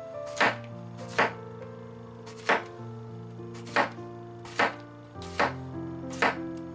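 Chef's knife slicing through a zucchini and striking a plastic cutting board: seven sharp chops at an unhurried pace, about one a second.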